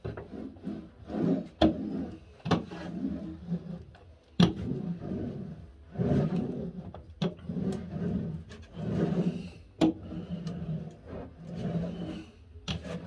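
A small hand roller run back and forth over 2 mm cork sheet, pressing it down onto contact cement on a plywood base. It makes a rolling rub in strokes of about a second each, with a few sharp knocks in between.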